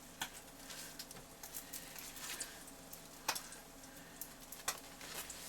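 Canned silkworm pupae frying in a pan: a faint sizzle with scattered sharp pops, three of them standing out.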